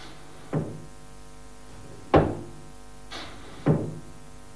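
Pneumatic cylinder driven back and forth by compressed air, knocking sharply at the end of its strokes: three knocks about a second and a half apart, over a steady hum.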